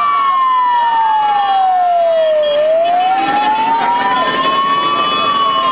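Vehicle siren in a slow wail, its pitch falling for about two and a half seconds and then rising again, over the noise of many motorcycles and a crowd.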